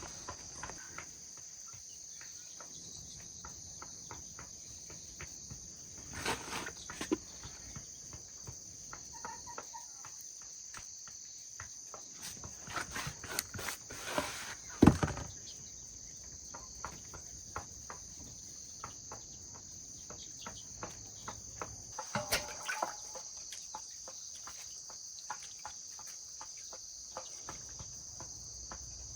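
A steady high-pitched chorus of insects chirring, with scattered clicks and knocks over it; the loudest knock comes about halfway through.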